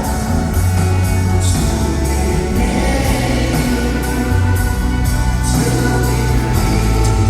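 Live concert music: a band playing a slow song with singing.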